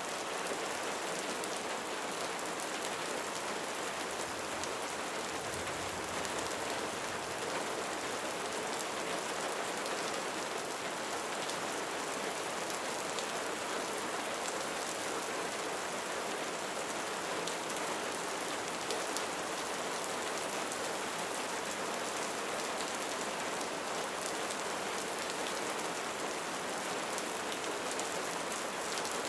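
Steady rain falling on a roof, a dense even patter with fine scattered drop ticks.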